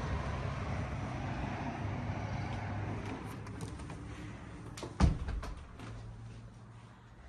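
Steady outdoor town noise with distant traffic, fading over the first few seconds. About five seconds in comes a single sharp thump, followed by quieter room sound with a few light clicks.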